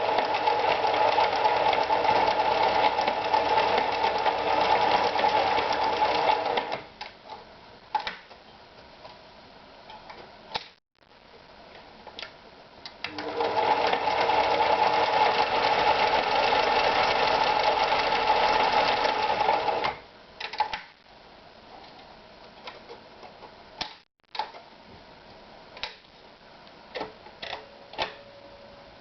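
Privileg Super Automatik TopStar 796 sewing machine running at a steady speed, stopping about seven seconds in and running again for about seven seconds in the middle. Scattered clicks and knocks come in the pauses between runs.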